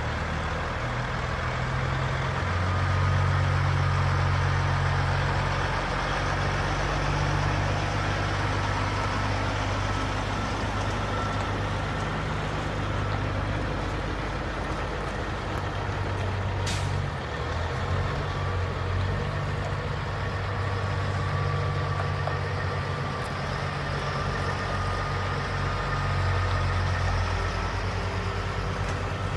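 Diesel semi truck engine running at low speed, a steady low drone with a faint wavering whine above it. A brief sharp noise cuts in once about seventeen seconds in.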